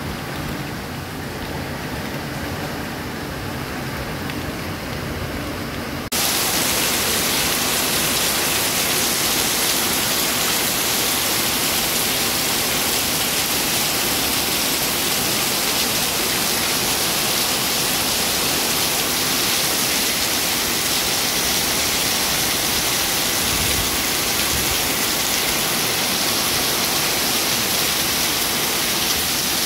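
Heavy rain pouring steadily. For about the first six seconds it is muffled by window glass, then it suddenly becomes louder and hissier, heard in the open as it falls on the garden plants and ground.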